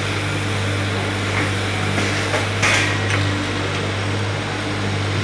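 Steady low hum of garment-factory machinery over a constant background of workroom noise. A few short knocks and taps stand out about two and three seconds in.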